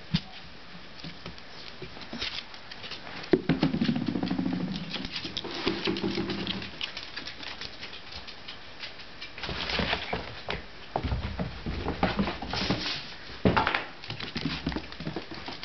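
A border terrier puppy's claws and paws clicking and pattering on a hardwood floor as it scrabbles about and knocks a toy around, in irregular flurries of sharp taps. A low buzzing rumble lasts about three seconds, a few seconds in.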